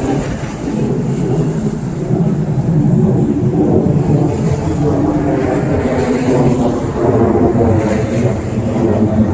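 Steady, loud rumble of passing vehicle traffic on a busy street, swelling a couple of seconds in.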